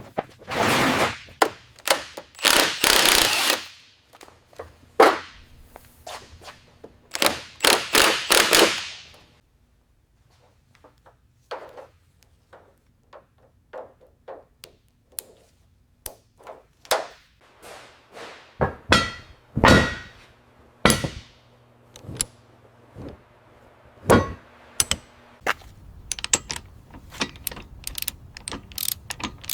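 Hand tools working on engine parts: a run of sharp ratchet-like clicks and metallic knocks, with two longer hissing bursts in the first nine seconds.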